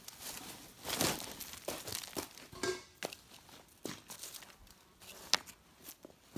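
Dry leaves rustling and crackling as they are handled, with stones knocking and crunching on river gravel as they are set down. One sharp click about five seconds in is the loudest sound.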